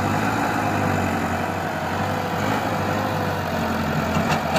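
Front-loader tractor's diesel engine running steadily while the loader bucket pushes into a pile of soil.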